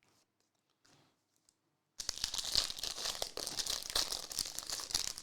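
A trading-card pack wrapper being torn open and crinkled, starting about two seconds in and going on for about three seconds. Faint clicks come before it.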